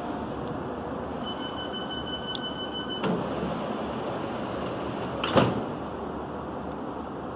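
Railway ambience: a steady background rumble with a high, even tone held for about two seconds near the start, a click, then a sharp knock a little after five seconds in.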